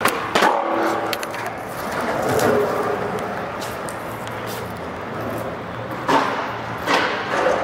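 Skateboard wheels rolling over a smooth concrete floor: a steady rolling rumble broken by several sharp clicks.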